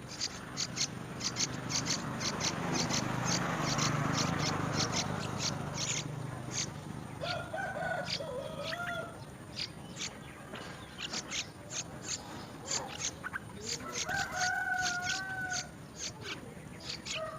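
Small birds chirping rapidly: many short, high-pitched chirps. A low rushing noise swells and fades in the first few seconds, and two longer, lower wavering calls come about halfway and again near the end.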